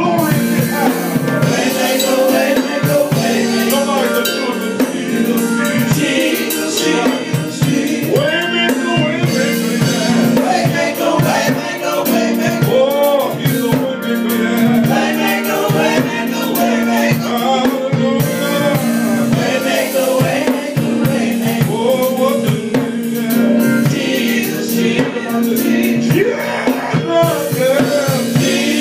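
Live gospel group singing, with a lead voice and backing singers over a drum kit and band.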